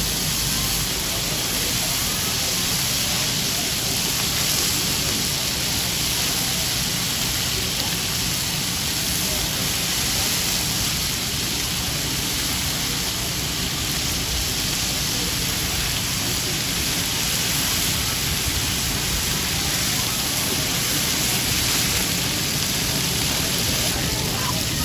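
Chicken thigh steaks sizzling steadily in oil on a flat-top griddle, played in reverse.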